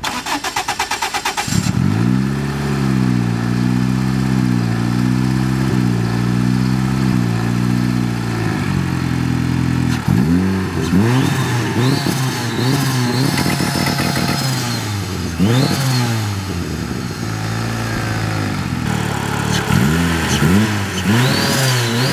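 The swapped, turbocharged Honda Brio's engine cranks on the starter for about a second and a half, catches and settles into a steady idle. In the second half it is given a series of quick throttle blips, each rev rising and dropping straight back to idle.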